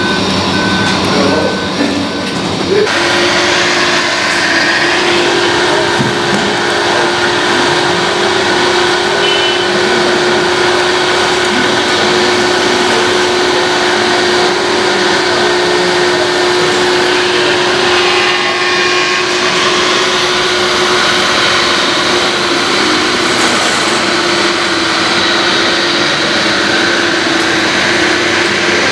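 Radio-controlled model truck running with a steady mechanical hum and whine. For the first couple of seconds a reversing beeper sounds in even pulses, then stops.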